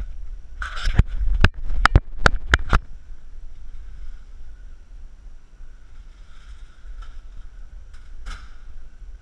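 A quick run of sharp knocks and scuffs right at the body-worn camera, about six in the first three seconds, from the camera wearer moving with his gear. After that only quieter rustling, with one more knock near the end.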